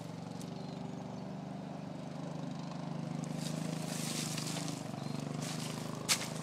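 Honda Rincon ATV's single-cylinder engine running at low speed some way off, its pitch rising and falling a little. Brush rustles close by, and there is one sharp click about six seconds in.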